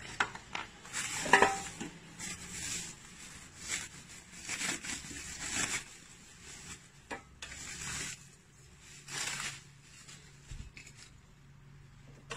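Packaging rustling as it is pulled out of a new air fryer's basket, with the crisper plate knocking and clattering against the basket, several times and loudest about a second and a half in.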